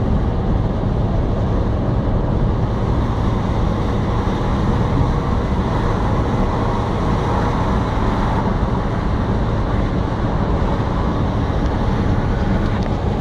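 Steady, loud rumble of a motor vehicle or road traffic, with a continuous low drone and a few faint steady hums over it.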